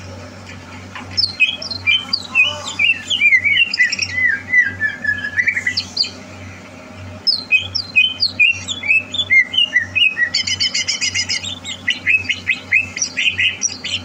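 Greater green leafbird (cucak hijau) singing: quick runs of sliding notes, a short pause about six seconds in, then a second run with a fast burst of rapid repeated notes around ten seconds in. A steady low hum runs underneath.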